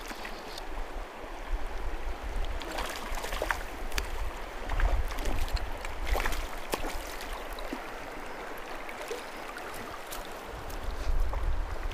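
River rapids rushing and gurgling steadily, with scattered sharp clicks and a low rumble that swells a couple of times.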